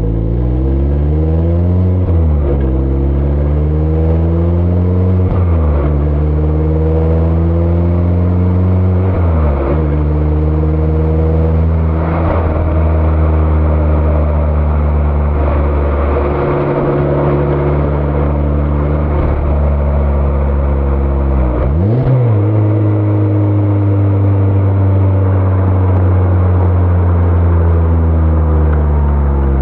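Mazda ND Roadster's four-cylinder engine and exhaust pulling hard through the gears: the pitch climbs and drops sharply at each upshift, about four times in the first twelve seconds. Then it settles into a steady cruise, with a quick dip and climb in revs about two-thirds of the way through.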